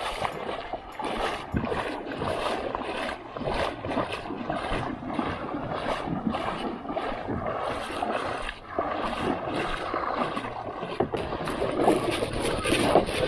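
Kayak being paddled through calm water: paddle blades dipping and splashing in a steady rhythm of about two strokes a second, with water washing along the hull.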